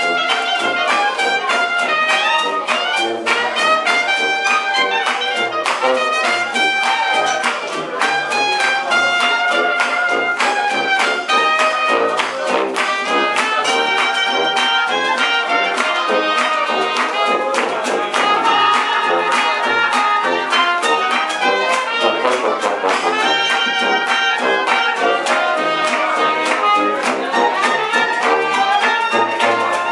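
Traditional jazz band with brass horns and a sousaphone playing a spiritual live, the horns trading melody lines over a steady beat.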